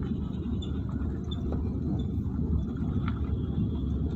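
Car engine running with a steady low rumble of engine and tyre noise heard from inside the cabin as the car moves slowly.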